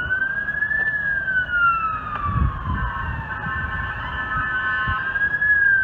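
Emergency vehicle siren wailing in a slow cycle, its pitch rising, falling and rising again, with a steady second tone sounding briefly in the middle. Low traffic rumble underneath.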